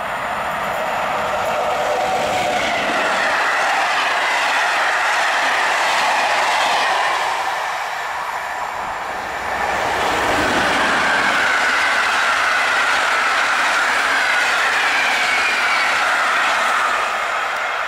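Two electric-hauled passenger trains passing in turn at speed: an EU07 locomotive with its TLK coaches, then about ten seconds in an EP09 with InterCity coaches. The sound is the rumble and clatter of wheels on rail with a high whine that falls slowly in pitch, and a brief lull between the two trains.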